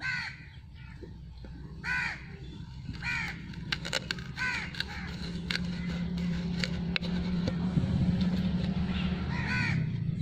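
A crow cawing repeatedly, one short caw about every second and a half, over a low steady hum that grows louder in the second half. Sharp clicks from the plastic bottle being handled and pierced with a heated stick fall between the caws.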